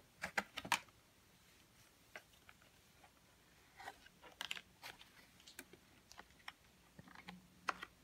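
Scattered light clicks and taps of a thick cardboard board book being handled and its pages turned over, with a cluster in the first second, another around the middle, and a single sharper click near the end.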